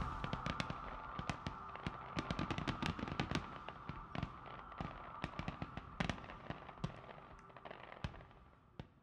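Fireworks popping and crackling in quick, irregular bangs that thin out and fade away near the end.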